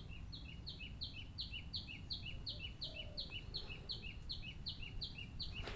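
A bird calling faintly: a short two-note chirp, a higher note dropping to a lower one, repeated steadily about three times a second.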